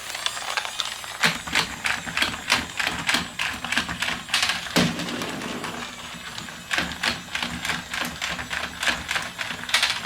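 Battery-powered novelty seal toy switched on and running: its mechanism makes a quick, uneven clicking and tapping, like a typewriter, over a faint low hum.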